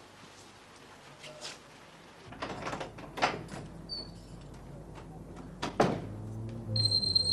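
Wooden door with a lever handle being opened: scattered handle and latch clicks and knocks, with a sharp knock near the end. A steady high-pitched tone starts just before the end.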